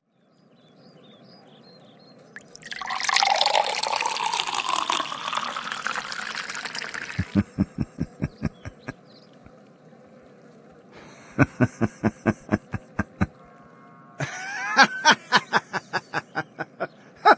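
Liquid being poured out in a steady splashing stream for about four seconds: juice being poured over someone. Then come runs of quick, evenly spaced short sounds, about five a second, and a voice-like sound near the end.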